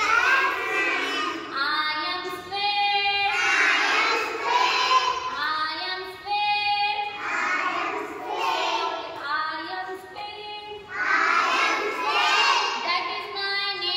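A group of young children singing a rhyme together in unison, in continuous sung phrases with short breaks between lines.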